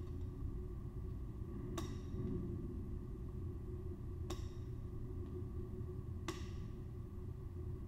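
Three sharp, ringing clicks about two seconds apart, as a small flower cutter is pressed down onto the work table, over a steady low room hum.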